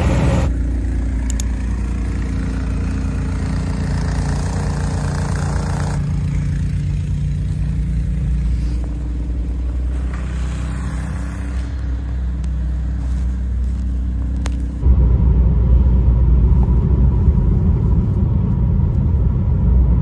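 Low, steady rumble of vehicle engines and road noise, changing abruptly several times as the scenes cut. It is loudest in the last few seconds, heard from inside a vehicle driving through blowing snow.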